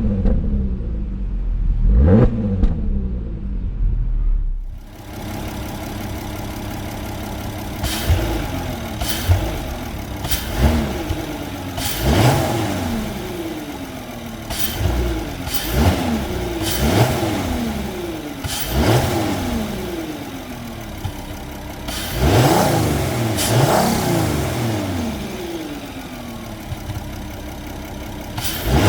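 Porsche Cayenne 957's 3.6-litre VR6 engine, on its stock exhaust, revved in short throttle blips. The revs rise sharply and fall back to idle each time, twice early on and then about a dozen more times.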